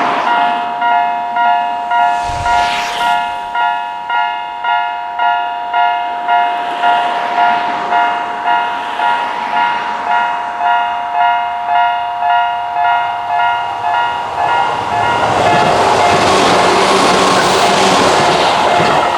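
Japanese railway level-crossing electronic alarm ringing, a repeated ding about one and a half times a second. It comes from two alarm units of different pitch, one set lower and eerie-sounding and the other higher. From about fifteen seconds in, the noise of a passing train swells up under the alarm.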